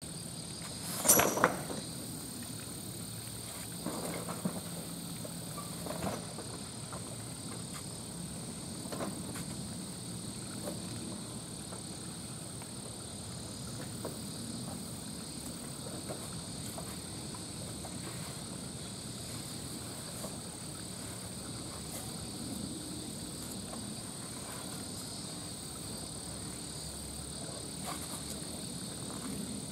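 Knocks and thuds of a chained wooden log and branch as an Asian elephant shoves and wrestles them, the loudest sharp knock about a second in and fainter ones scattered after, over a steady high-pitched hum.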